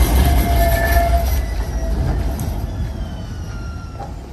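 Siemens S70 streetcar passing close by on its rails: a low rumble with thin steady whining tones over it, fading as the car pulls away.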